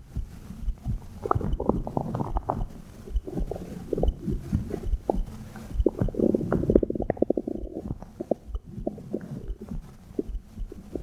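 Human stomach gurgling, heard through a phone microphone pressed against the belly: irregular wet bubbling pops, with a quick run of gurgles a little past halfway, over dull low heartbeat thumps.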